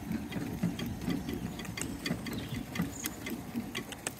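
Shetland pony pulling a carriage over grass: harness and carriage rattling, with a run of sharp clicks over a low rumble.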